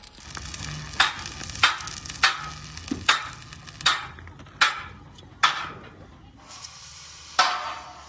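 Electric arc welding on a steel truck chassis rail: the arc crackles and sizzles, with sharp louder spits every half second to second that quickly die away.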